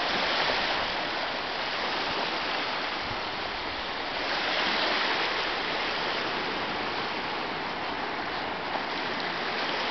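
Small sea waves breaking and washing up a sandy beach: a steady rushing hiss of surf that swells a little about four seconds in.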